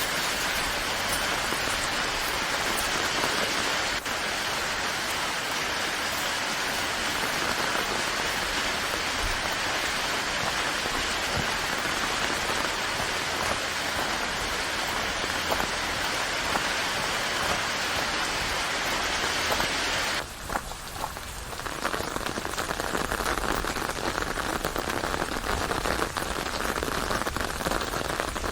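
Steady rain falling and pattering on a surface. About two-thirds of the way through, the sound briefly dips, then carries on with less high hiss.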